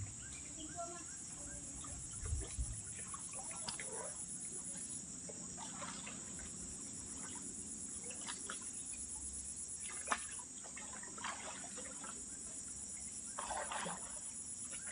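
A steady, high-pitched chorus of insects pulsing evenly, with scattered splashes and sloshing of water as men wade through a pond.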